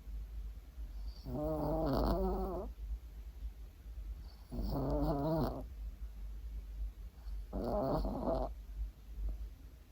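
Maltese dog snoring in its sleep: three pitched, wavering snores about a second long, roughly three seconds apart, one with each breath.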